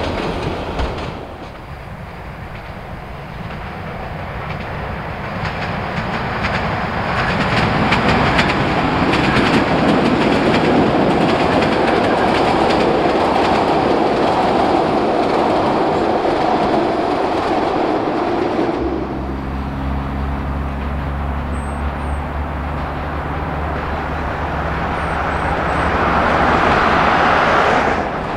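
Narrow-gauge passenger train running past with its wheels clattering over the rail joints. About two-thirds of the way through, a diesel locomotive's engine takes over as a steady low drone.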